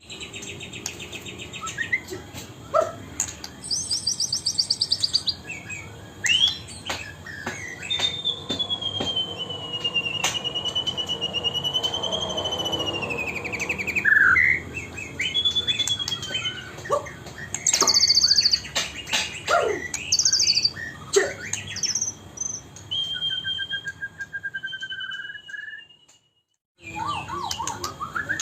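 White-rumped shama (murai batu) singing a varied, loud song: rapid buzzy trills, sharp whistled notes and a long wavering whistle, with a brief break near the end.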